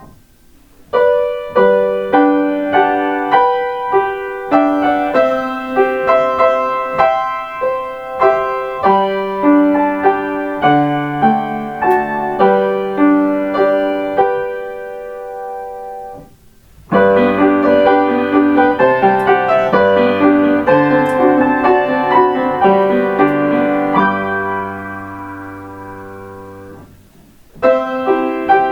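Piano playing Kintetsu limited express on-board chime melodies, transcribed by ear. There are three short tunes: one from about a second in, a second with low held bass notes after a brief pause, and a third beginning near the end.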